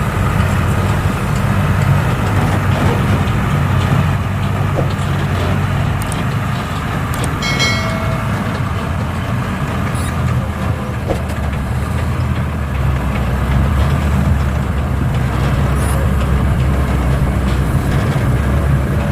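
Heavy machinery engine running steadily, with a short high-pitched tone about seven to eight seconds in.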